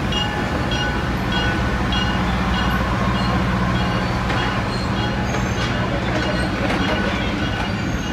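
Diesel-hauled train of heritage passenger cars rolling slowly past, with a steady low engine drone and the rumble of wheels on rail. A light ringing repeats about twice a second for the first couple of seconds, then fades.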